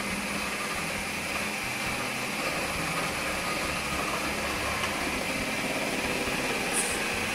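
Ninja Professional food processor running steadily on its slicing disc while a cucumber is pushed down the feed chute and sliced.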